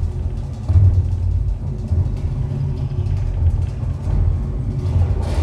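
Live noise music from a homemade amplified instrument of springs, cans and metal strips worked by hand. It makes a dense, heavy low rumble with crackle above it, and the sound turns harsher near the end.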